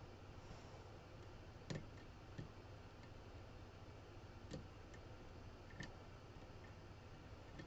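Faint, sparse clicks of a short-hook lockpick working the sliders of a Mazda CX-5 car lock, four clicks a second or two apart over a low steady hum.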